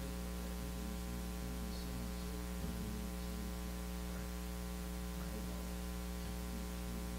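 Steady electrical mains hum, a low buzz made of many evenly spaced steady tones, unchanging throughout.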